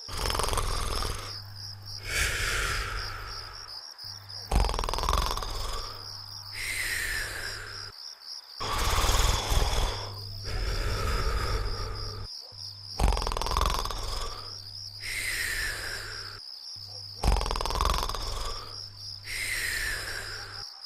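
Cartoon snoring: about five slow cycles, each a rasping in-breath followed by a falling whistle on the out-breath. A steady cricket-like trill runs underneath.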